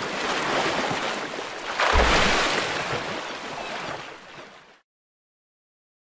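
Sea water sloshing and splashing, with a heavy splash and low thump about two seconds in as a humpback whale's tail slaps the surface. The splashing dies away, then cuts to silence before the end.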